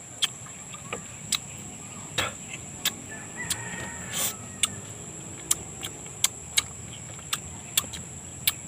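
Wet mouth smacks and sharp clicks at irregular intervals from eating ripe mango and licking sticky fingers, over a steady high insect drone.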